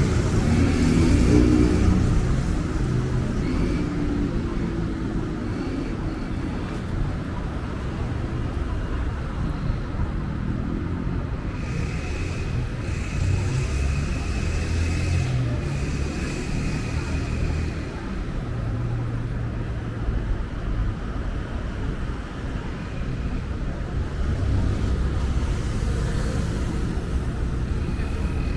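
City street traffic: motor vehicles running past with a steady low rumble. A thin high steady tone sounds for several seconds around the middle.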